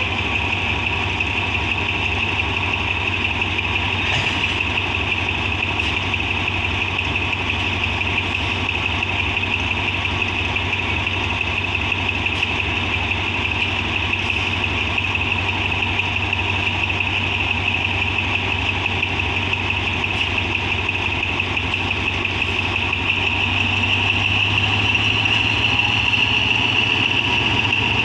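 Diesel locomotive engine running steadily at idle, with a constant high whine over the rumble. Near the end the engine note grows a little louder and deeper.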